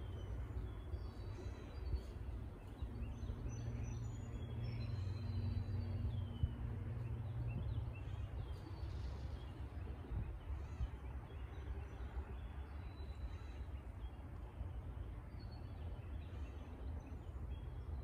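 Lakeside outdoor ambience: a steady low rumble with scattered short, high chirps from small birds. A low droning hum swells for a few seconds in the first half and then fades.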